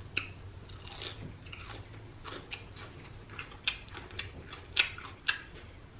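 Chewing a mouthful of deep-fried battered seafood, with irregular crisp crunches from the batter among softer mouth sounds.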